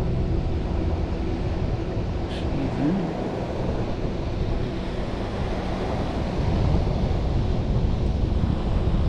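Surf breaking on the shore, with wind rumbling on the microphone.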